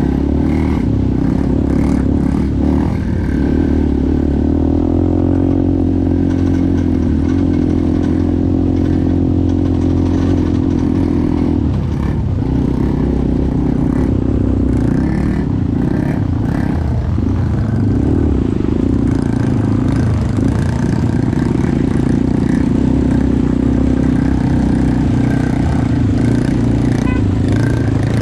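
ATV engine running under way, its note rising and falling with the throttle, with occasional clatter and knocks from the machine.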